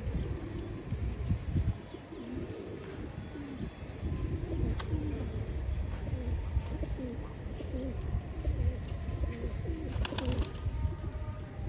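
A flock of Patiala pigeons cooing, many short low coos overlapping. A low rumble runs beneath, with a couple of sharp clicks.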